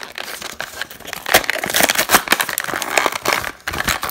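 Clear plastic blister of a die-cast toy car package crinkling and crackling as hands pull it free of its cardboard backing card, in a rapid, irregular run of crackles.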